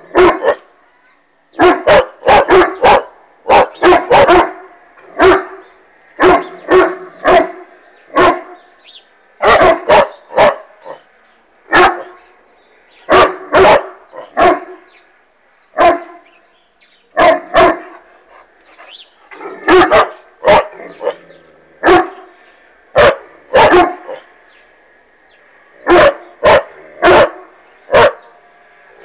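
Irish wolfhound barking repeatedly: dozens of loud, sharp barks, many in quick runs of two to four, with short pauses between the runs.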